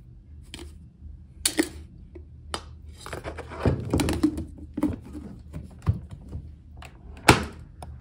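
Ground coffee being scooped out of a metal coffee can into a drip coffee maker's filter basket: scrapes and taps of the scoop against the tin and a clatter of handling knocks. Then a sharp clack about seven seconds in as the coffee maker's hinged lid is snapped shut.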